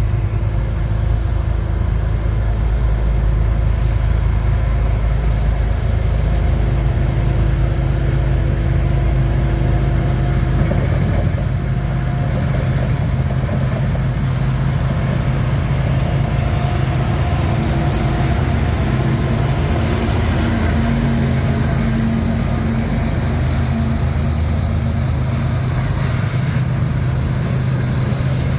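Diesel freight train passing close by: the locomotives' engines give a steady, loud drone with a few held tones over it.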